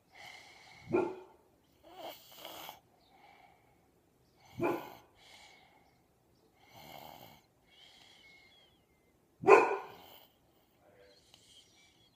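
A sleeping young child snoring: three short, loud, rasping snorts about four seconds apart, the last the loudest, with softer breaths between. The snoring comes with strep throat.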